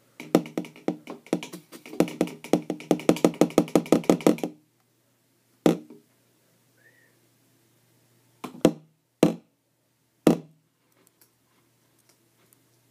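A rapid run of sharp knocks or taps on a hard surface, about six a second for roughly four seconds, followed by four single knocks spaced a second or so apart.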